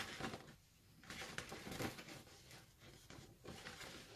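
Faint, irregular rustling and crinkling of a large folded glossy paper poster being handled and smoothed flat by hand, with a short click at the start.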